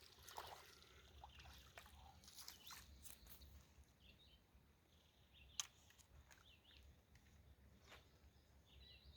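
Near silence: faint outdoor ambience with a few short bird chirps, scattered small clicks and taps, and one sharp click about five and a half seconds in.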